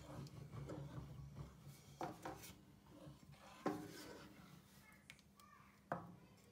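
Faint scraping of a wooden spatula stirring thick spinach sauce in a frying pan, with three sharp knocks spread through it.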